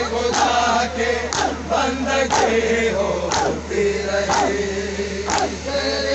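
Male mourners chanting a noha together, crossed by sharp, even strikes about once a second: hands beating on bare chests in matam.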